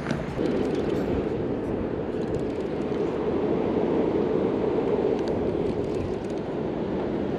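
Steady rushing of river water through rapids, an even, unbroken noise.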